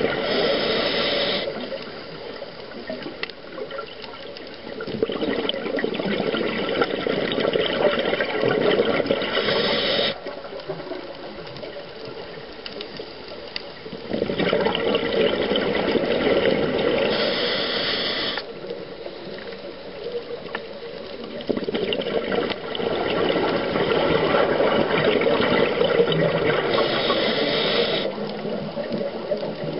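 Scuba diver breathing through a regulator underwater: exhaled bubbles gurgle and rush for about five seconds at a time, three times, each burst ending with a brief higher hiss, with quieter inhalations between.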